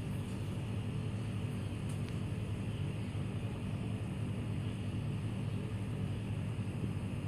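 Steady low rumble that keeps on evenly throughout.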